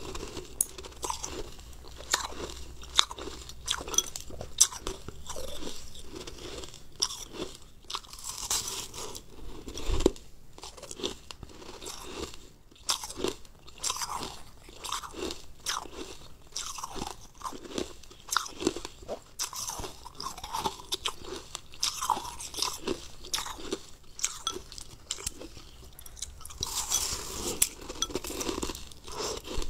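Close-up crunching and chewing of frozen, crumbly ice chunks: each bite breaks into a quick run of sharp crackles, with chewing between bites.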